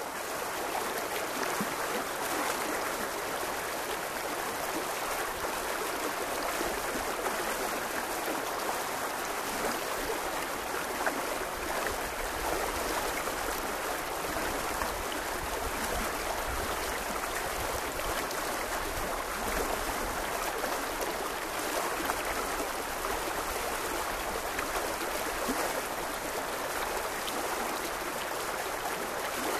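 Shallow, rocky river running over cobbles in a riffle, heard close to the water: a steady, even rush of water.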